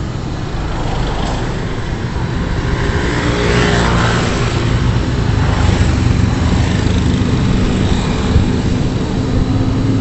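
Multirotor drone's propellers humming steadily, a low droning buzz made of several pitches, with a brief rushing swell about four seconds in.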